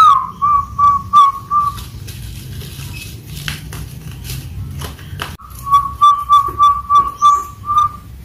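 A person whistling a string of short, clipped notes on one pitch: about five at the start, the first sliding down into the note, then a quicker run of about ten near the end.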